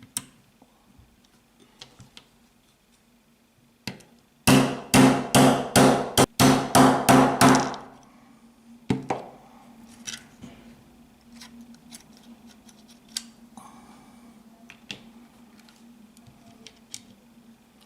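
Hammer tapping a 1/8-inch roll pin punch to drive the roll pin out of a Smith & Wesson M&P pistol frame: about nine quick, ringing strikes over some three seconds, with a single knock shortly before and another after, then light metal clicks.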